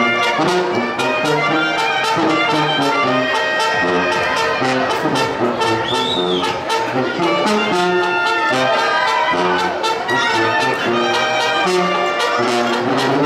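A brass band playing a lively tune: horns carry the melody over a sousaphone bass line that alternates between low notes, with a steady drum beat.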